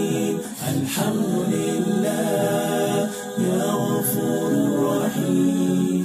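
A cappella nasheed: several voices singing held, layered harmonies with no instruments.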